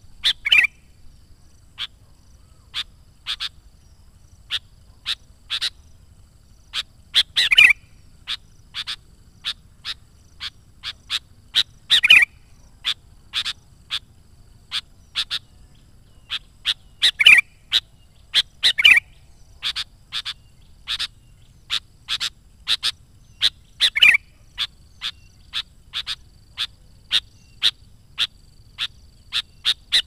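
Sooty-headed bulbul (kutilang) calling: a loud short note about every five seconds, among a steady run of short, sharp notes coming about once or twice a second.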